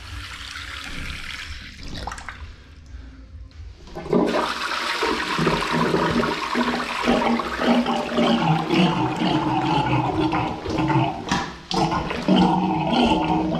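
Toilet flushing from about four seconds in, water rushing into the bowl while a rubber plunger pumps and churns it, working to clear a blocked wall-hung toilet.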